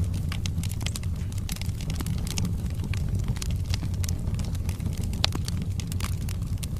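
Wood fire burning in a fireplace: a steady low rumble of flames with many small, sharp crackles of the burning logs, and one louder pop about five seconds in.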